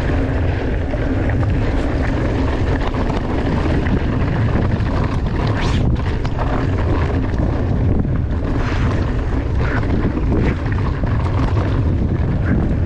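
Wind buffeting the microphone of a moving mountain bike, a loud steady low rush, with scattered clicks and rattles from the bike and tyres over the ground.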